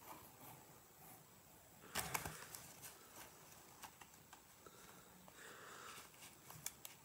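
Quiet handling noises from hands working with a small mantis container: faint rustles and scattered small clicks, with a short cluster of louder clicks about two seconds in.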